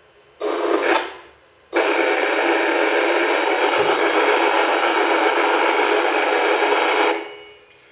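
FM two-way radio static hiss from a radio's speaker, squelch open with no voice: a short burst about half a second in, then a long steady hiss from about two seconds in that cuts off near the end.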